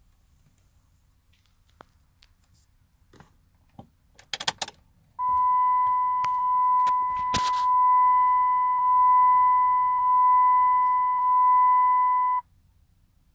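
A quick rattle of clicks as the ignition key is turned. Then the Dodge Ram instrument cluster's chime sounds one steady high beep for about seven seconds while the gauges run their self-test, and it cuts off suddenly.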